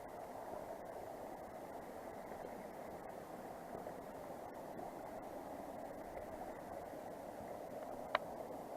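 Steady rushing of a mountain creek's water, with one short sharp click near the end.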